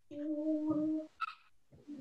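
A child's voice holding one steady note for about a second, followed by a brief higher sound, heard over a video call.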